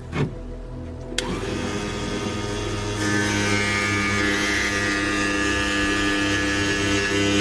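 A thump just after the start, then a power grinder switched on with a click about a second in, its motor rising in pitch as it speeds up. From about three seconds in it runs louder and steady with a high whine as it grinds round the edges of the piece.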